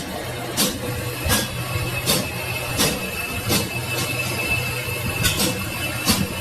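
A machine running with a steady hum, with a sharp knock repeating about every three-quarters of a second.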